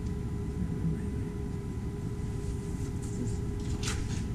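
Steady low rumble with a faint steady hum, and a few light clicks and taps about three to four seconds in.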